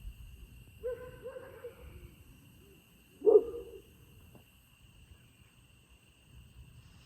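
An animal calls twice: a drawn-out call about a second in, then a short, louder one just after three seconds. Beneath it runs a steady high-pitched insect drone.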